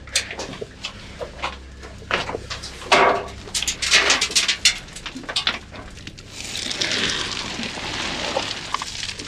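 Irregular knocks, clatters and scrapes of boots and gear against rock and timber while climbing down a narrow mine chute, the loudest knock about three seconds in. About six seconds in a steady hissing rush starts and carries on to the end.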